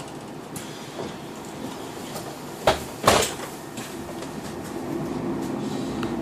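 Knocks and clunks aboard Connexxion vehicle 9154, with two louder thuds about two and a half and three seconds in. Then, from about four seconds in, a steady hum with a low droning tone sets in and grows a little louder.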